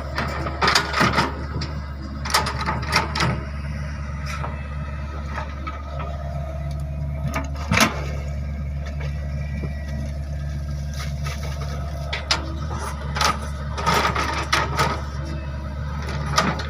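Hydraulic excavator engine running steadily, with bursts of metallic clanking and knocks from the machine working.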